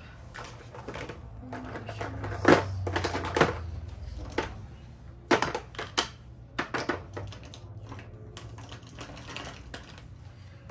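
Small plastic makeup items such as mascara tubes clattering as they are handled and packed into a case: irregular clicks and knocks.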